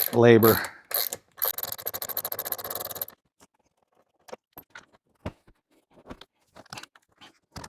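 Ratchet clicking rapidly for about two seconds, then a few scattered faint clicks and light knocks of tools on metal.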